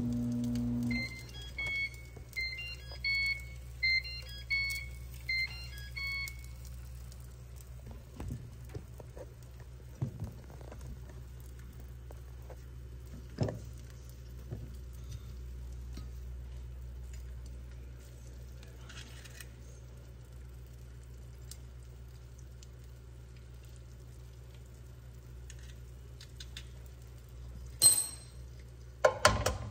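An egg frying faintly in a nonstick pan over a steady low hum. Near the start an electronic alarm beeps for about five seconds, about two short two-tone beeps a second. There are scattered light clicks, and a couple of sharp knocks near the end.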